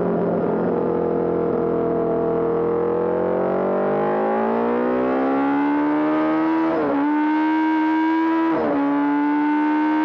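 Honda CB750 racer's air-cooled inline-four engine running hard in a race: the engine note sags briefly, then climbs steadily as the bike accelerates, with two quick upshifts in the second half.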